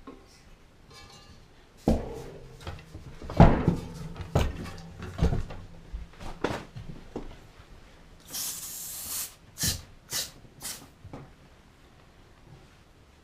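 Knocks and clatter of tools and parts being handled during refrigerator repair work, followed by a hiss lasting about a second and then three short hisses.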